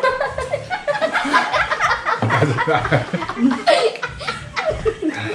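People laughing and chuckling, with some voices mixed in.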